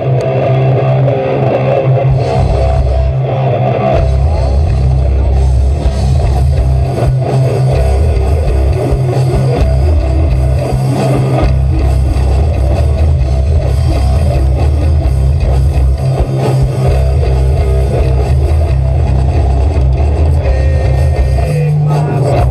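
Live heavy rock band playing loud, with electric guitar, bass guitar and drums and a heavy, sustained bass.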